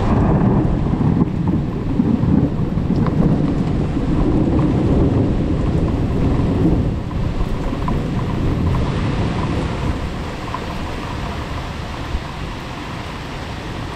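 A long roll of thunder rumbles deep and loud for about seven seconds, then dies away into the steady sound of heavy rain.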